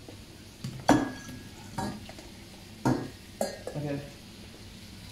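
Sharp knocks and clatter of a steel saucepan and a plastic draining container against a stainless steel sink, four distinct knocks about a second apart, as freshly drained noodles are handled.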